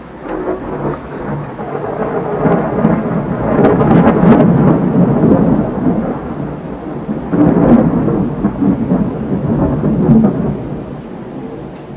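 Thunder rumbling in long rolls, swelling loudest about four seconds in and again near eight seconds, with a crackling edge at the peaks, over steady rain.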